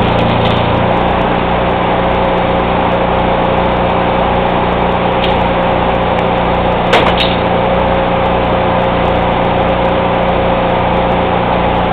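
Engine-driven welding generator running at a steady speed, with a single sharp metallic knock about seven seconds in.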